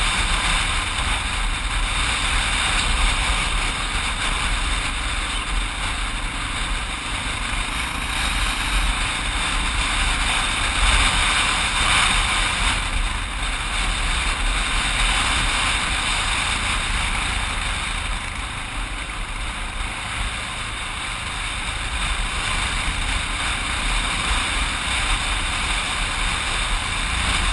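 Dual-sport motorcycle riding along a road, heard from a camera mounted on the bike: the engine runs steadily under heavy wind noise on the microphone.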